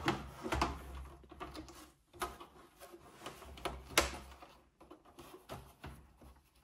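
Light plastic clicks and rattles as parts inside an opened Melitta CI Touch coffee machine are handled and fitted, with one sharper click about four seconds in.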